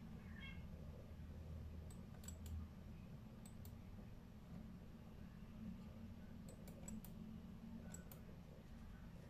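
Near silence: a low steady hum with a few faint clicks in small clusters, around two to three and a half seconds in and again around six and a half to eight seconds.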